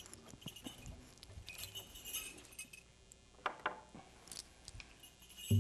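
Faint metallic jingling from a dancer's regalia as he moves, with a few soft knocks. Right at the end, a frame hand drum is struck for the first loud, low beat.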